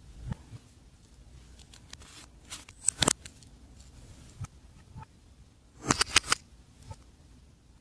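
Glossy slime being mixed, giving sticky pops and clicks: one sharp pop about three seconds in and a quick run of several about six seconds in.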